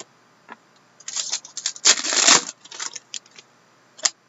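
Trading cards being handled: a run of small clicks and a brief rustling scrape about two seconds in, as cards are flipped and slid against each other.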